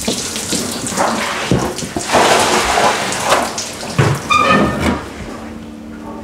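Whey splashing and running off in several surges as fresh cheese is handled and pressed in the cheese vat.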